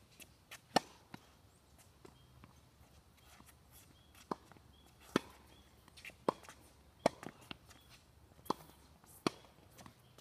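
Tennis ball hit with a racket and bouncing on a hard court: sharp pops, one loud pop about a second in, then a string of them roughly one a second from about four seconds on.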